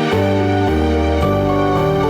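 Closing theme music: sustained orchestral or synthesizer chords over deep bass notes, changing about every half second.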